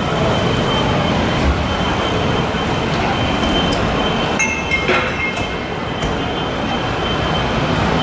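Busy city street traffic: cars passing by, with a steady high-pitched tone running underneath. A short cluster of higher tones sounds briefly about four and a half seconds in.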